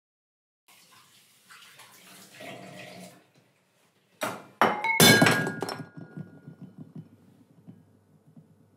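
Soft sounds of water and dishes at a kitchen sink, then ceramic plates smashing on a hard floor: three crashes about four to five seconds in, the last loudest, followed by ringing shards clattering and settling.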